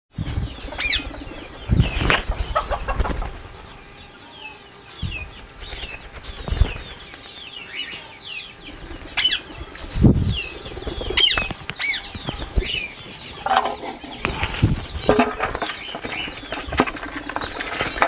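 Flock of rose-ringed parakeets flapping their wings as they fly about and land, with many short, sharp chirps and squawks throughout and a few loud thumps, the biggest about two seconds in and again about ten seconds in.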